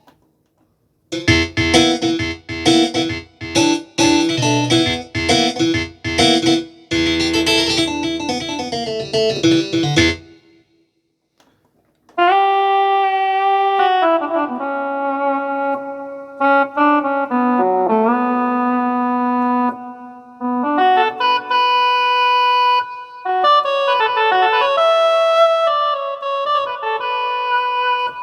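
Korg M1 synthesizer played through two patches. The first is short, repeated chord stabs over a low bass for about nine seconds. After a brief pause, a held melodic lead follows, its notes gliding into one another.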